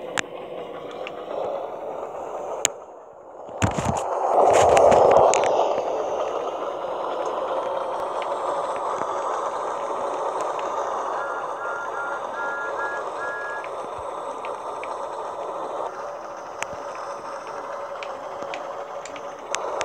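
Motorized Thomas toy engine running along plastic track: a steady whirr of its small motor and wheels. There are a few sharp knocks and a louder rush about four seconds in.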